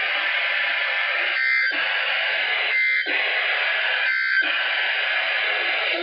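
Weather radio receiver hissing with static, broken three times, about a second and a quarter apart, by short bursts of warbling two-tone data. This is typical of the SAME end-of-message code that closes an EAS Required Weekly Test.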